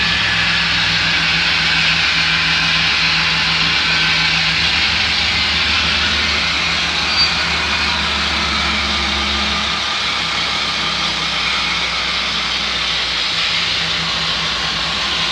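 N scale model trains running on a layout: a steady hiss with a low hum beneath it that shifts in pitch about ten seconds in and again near the end.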